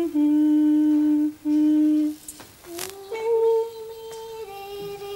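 A woman hums a short tune in long held notes, with a low note held for about two seconds. After a brief pause and a sharp click, the melody resumes on higher held notes that step down.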